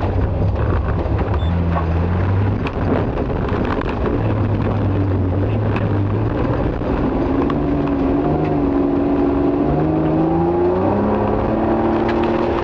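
Nissan Skyline rally car's engine, heard from inside the car: a low engine note with a few steps in pitch early on, then revving up with rising pitch through the second half as the car accelerates. A steady rush of road noise runs under it.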